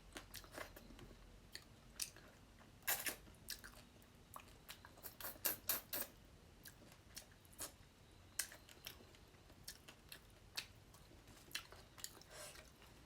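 Close-miked mouth sounds of someone chewing fish curry: soft, irregular wet clicks and smacks, with small clusters of louder clicks about three seconds in and again around five to six seconds in.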